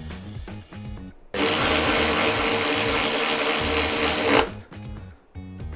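Handheld power driver running a shock mounting bolt on a Harley-Davidson Softail, a steady whine that starts about a second in, runs for about three seconds and stops abruptly. Background music throughout.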